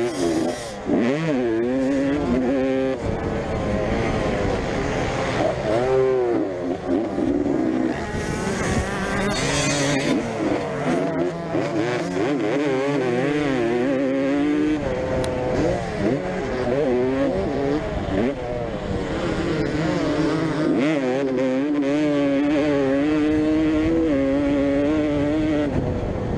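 Vintage motocross bikes racing, several engines overlapping, their pitch rising and falling with each throttle blip and gear change.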